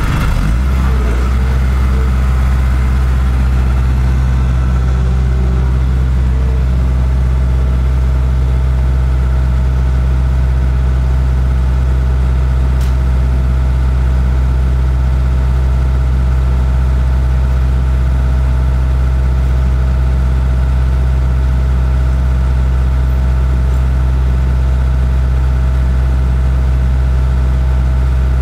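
A loud, steady engine hum, like a motor idling, unchanging throughout.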